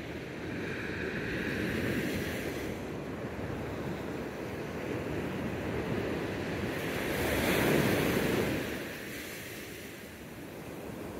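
Ocean surf breaking and washing up the beach, a steady rush that swells to its loudest as a wave crashes about seven seconds in.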